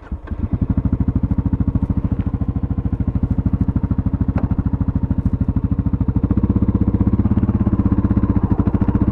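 2024 Kawasaki KLR650S single-cylinder engine running under way with a steady pulsing beat as the bike rides off onto a dirt road. The engine's note changes about six seconds in.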